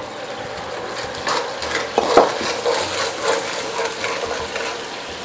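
Soy sauce, sugar and water sauce heating in a wok with a steady hiss, stirred with a wooden spatula that scrapes and knocks against the pan a few times in the first few seconds.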